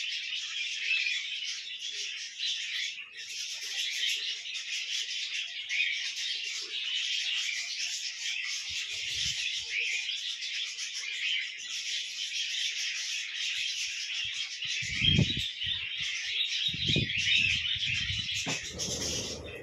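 Dense, continuous chattering and chirping of a flock of small birds. A few low thuds come near the end.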